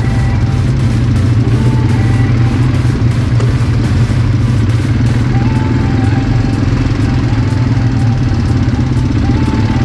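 Quad bike (ATV) engine running steadily while riding along.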